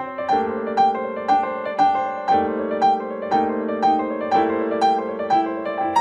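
Background piano music: an even run of single notes, about two a second, over held lower chords.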